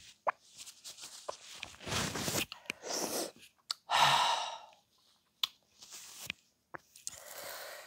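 A man's heavy breaths and sighs after gulping a drink, with one loud open-mouthed "ahh" about four seconds in. Short clicks and tissue rustles come between the breaths.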